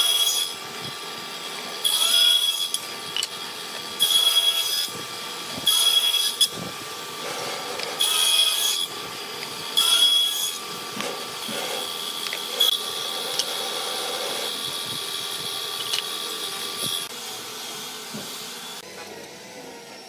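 Table saw running with a steady high whine, cutting wooden strips in loud passes about every two seconds. Near the end the sawing stops and light wooden knocks follow.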